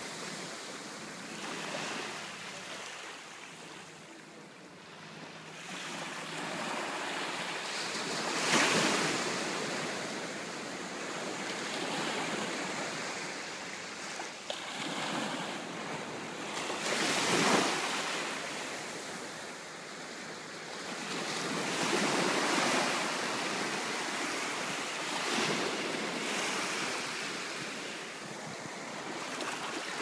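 Small ocean waves washing up onto a sandy beach and draining back, the wash swelling and fading every few seconds, with two louder surges about a third of the way in and just past halfway.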